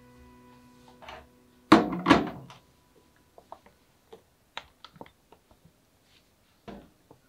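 A glass bowl knocked down twice onto a kitchen counter, then light clicks and taps of a spoon against the glass bowl as flour is spooned in, and one more knock near the end.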